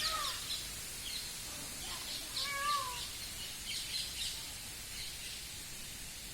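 Birds calling: scattered short high chirps, and two longer bending calls, one at the start and one about two and a half seconds in, over a steady hiss.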